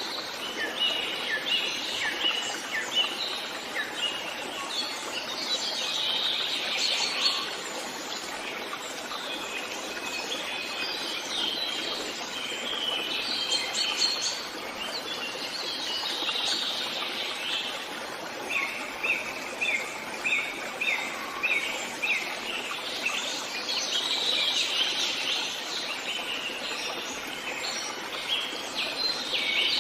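Several birds singing and chirping, with short repeated phrases, over a steady rush of wind in the trees.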